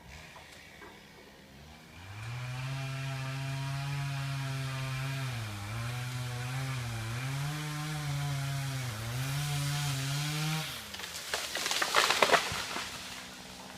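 Two-stroke chainsaw revving up and running at high speed, its pitch sagging briefly three times as it bites under load, then winding down. A loud burst of crackling follows for about a second.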